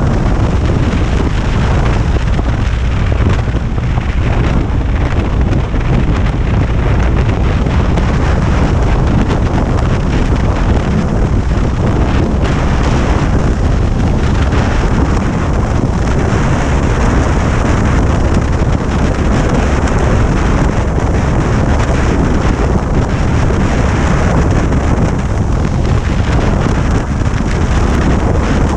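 Steady, loud wind noise buffeting the microphone of a motorcycle travelling at road speed, over the low rumble of the bike and its tyres on the road.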